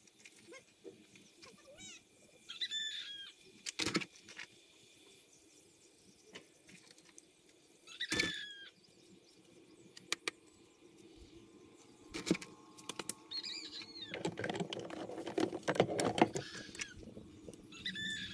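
A bird calling about every five seconds, each a short chirp that bends in pitch. Between the calls come scattered clicks, and a denser rattle and clatter of kitchen items being handled about fourteen to seventeen seconds in.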